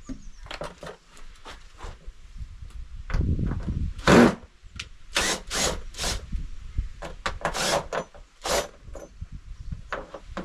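Hand work on a plastic storage box's hinges and lid: a series of knocks, clacks and scrapes, the loudest a sharp knock about four seconds in.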